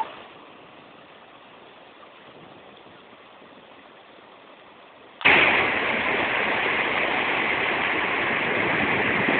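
Faint steady hiss, then about five seconds in a much louder steady rush of flowing water cuts in suddenly and continues.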